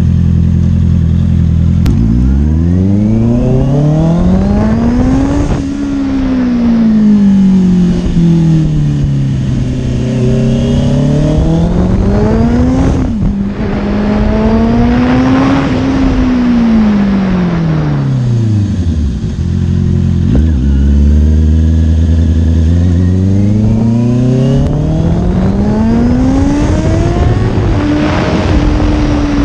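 Honda CBR sport bike's engine heard from on board. It idles at first, then revs up and falls back again and again as the bike accelerates and slows. It settles briefly to idle about two-thirds of the way through, then climbs again near the end.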